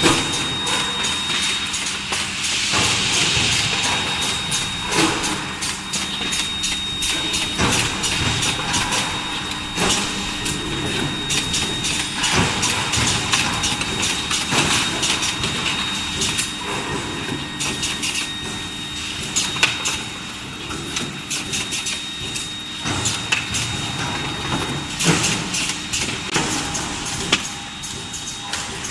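Forging-line machinery running: an induction billet heater, feed conveyor and forging press. A steady high whine and constant machine noise sit under frequent sharp metal clanks and knocks.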